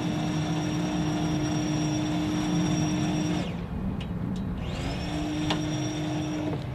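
F-35A Lightning II jet running on the ground at idle: a steady high whine over a low rumble. The whine breaks off a little past halfway, then rises back in about a second later and holds.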